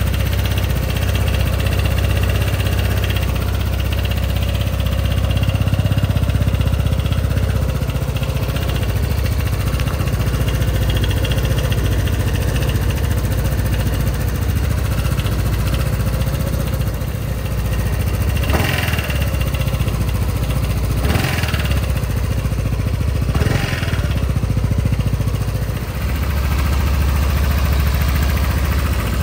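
Aeon STR motorcycle engine idling steadily with a strong low drone, an idle vibration that the owner finds is getting worse. In the second half come three short clacks about two seconds apart.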